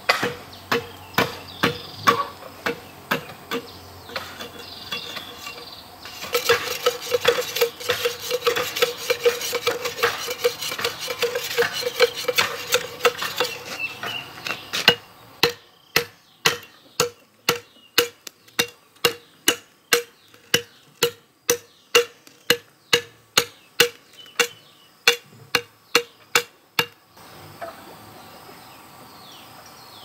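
A metal blade chopping and knocking on a bamboo pole in a steady rhythm, about two strikes a second, each with a short ringing tone. The strikes stop a few seconds before the end, leaving insects and birds.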